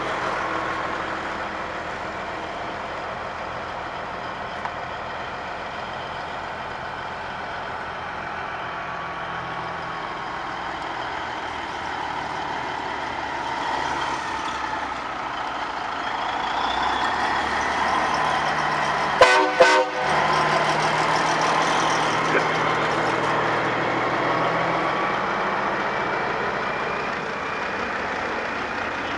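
Heavy diesel trucks driving slowly past, engines running, with two quick toots of a truck horn about two-thirds of the way through.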